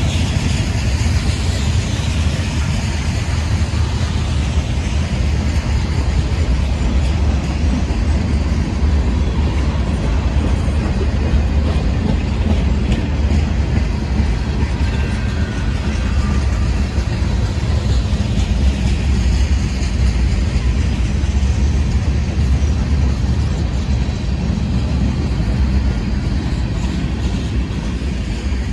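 Freight cars of a Norfolk Southern mixed freight train rolling past: a steady, low rumble of steel wheels on rail.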